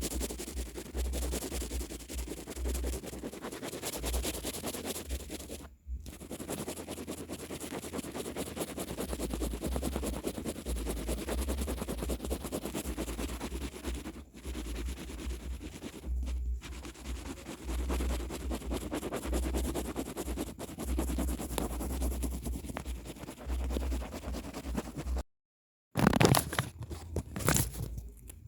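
Paper being handled and rubbed: continuous rustling and scratching, with a few brief dropouts. After a short silent gap near the end come louder, sharp crackles.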